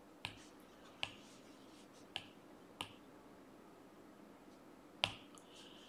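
A stylus tapping on a tablet screen while writing: about five sharp, unevenly spaced clicks with little sound between them.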